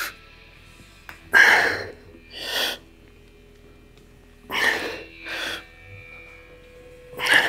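A weightlifter breathing hard through the effort of a set of front delt raises: a sharp, noisy exhale followed by a shorter breath, in pairs that come about every three seconds.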